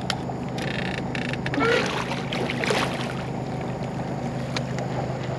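Steady low hum of the bowfishing boat's motor, with a few short rattles and a brief squeak in the first couple of seconds.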